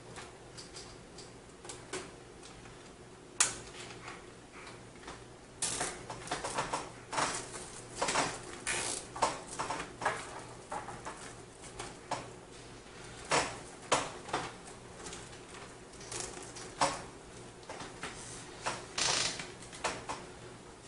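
Cables being handled and pushed into place behind a PC case's motherboard tray: irregular rustling and scraping with scattered sharp clicks, busier after the first few seconds.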